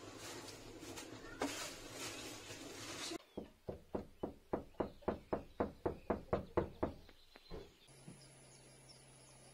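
A quick, even run of about fourteen sharp knocks, about four a second, starting about three seconds in and stopping just before the end. It follows a stretch of rustling outdoor noise. Near the end a steady high insect chirring begins.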